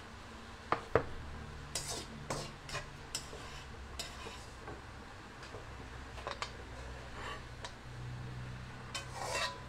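Metal cooking utensils clinking and scraping against a wok and a pot as noodles are handled and soup is stirred: a dozen or so separate sharp knocks, more of them near the end, over a low steady hum.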